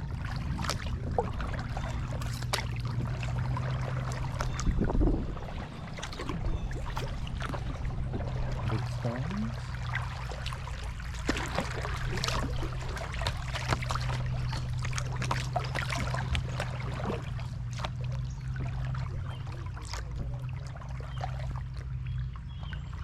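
Canoe paddling: paddle strokes in the water with splashing and dripping, and scattered light knocks and clicks, over a steady low hum.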